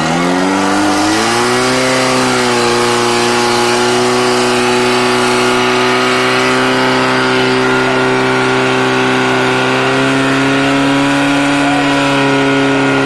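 Portable fire pump's engine revving up to full throttle, its pitch climbing over the first second or two and then holding steady at high revs with a slight further rise about ten seconds in. It is driving water through the attack hoses to the nozzles.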